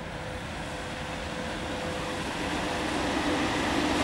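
VL80S electric locomotive hauling a freight train past, its running noise growing steadily louder as it comes by, with a steady hum running through it.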